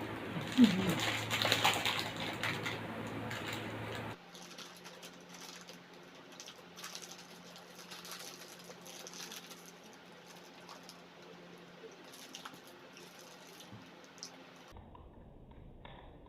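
Someone eating: small clicks and rustles of chewing and handling food, loudest in the first four seconds, then fainter scattered clicks after the background hum drops out suddenly about four seconds in.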